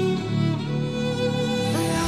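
Background music with slow, held chords.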